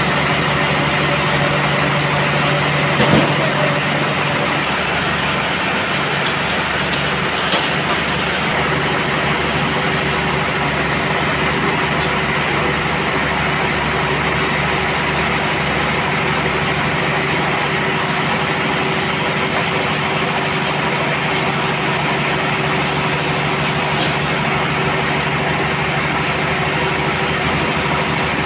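Band sawmill running with a steady mechanical drone and hum, with a brief knock about three seconds in.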